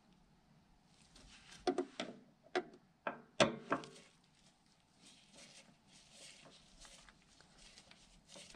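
Hand screwdriver driving a small screw into a steel fuel pump retainer ring, with a cluster of sharp metal clicks and taps between about two and four seconds in and faint scraping and rubbing around them.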